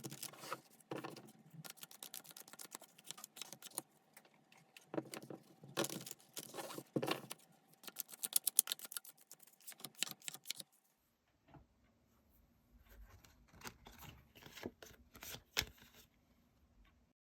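Tarot cards being shuffled and handled: papery clicks and scrapes, with a fast run of clicks about eight seconds in and softer handling after a short pause near the end.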